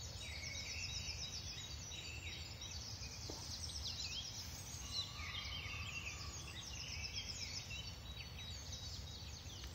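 Dawn chorus: many songbirds singing at once, chirps and trills overlapping throughout, over a low steady rumble.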